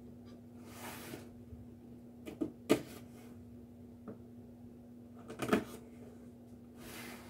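Cardboard figure box being handled on a wooden table: soft sliding and rubbing, with a few light knocks and taps, the sharpest about two and a half seconds in and another small cluster about five and a half seconds in. A faint steady hum sits underneath.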